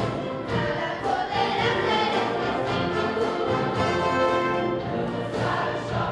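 Concert band of flutes, clarinets, saxophones and brass playing with a choir singing along, sustained chords at a steady level.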